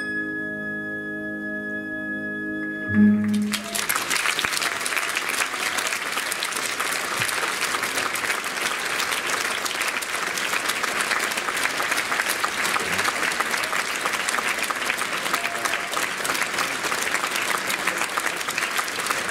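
Orchestral music holds a closing chord that ends with a louder final accent about three seconds in; then an audience breaks into steady applause.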